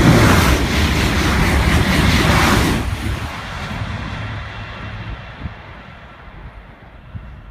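TGV Duplex high-speed train passing at line speed: a loud rush of air and wheel-on-rail noise that drops off sharply after about three seconds and then fades away.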